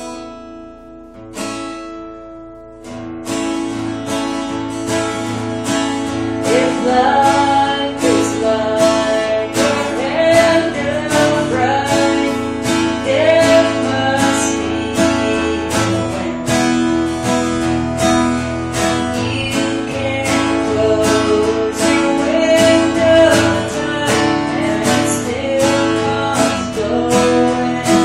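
Acoustic guitar strumming a song's accompaniment: a chord rings out at first, then about three seconds in a steady strummed rhythm begins, with a melody line gliding above it from about seven seconds on.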